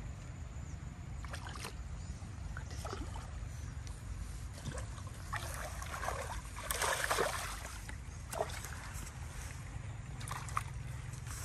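Water sloshing and splashing in irregular bursts, with the loudest splash about seven seconds in, over a steady low rumble.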